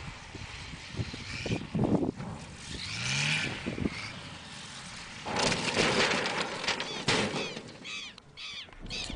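Light propeller aircraft flying low and landing, recorded on amateur video with wind rushing on the microphone. About five seconds in a loud rushing noise rises, and sharp knocks follow near the end as a plane crashes.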